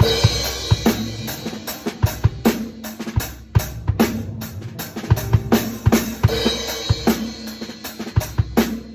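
Drum kit played solo in quick, busy patterns of bass drum and snare hits, with a cymbal crash ringing out at the start and again about six seconds in.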